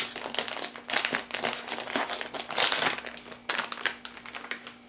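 Plastic packaging of a pack of soft-plastic fishing baits crinkling and crackling irregularly as it is opened and a bait is pulled out, thinning out near the end.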